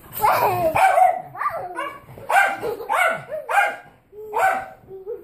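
A dog barking repeatedly, about eight or nine short, high-pitched barks in a row.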